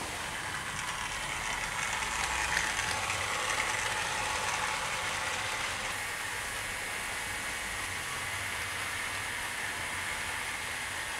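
Hornby Class N2 00 gauge model steam locomotive running along the layout track: the steady whir of its motor and wheels on the rails, a little louder a couple of seconds in. These models tend to run a little noisily.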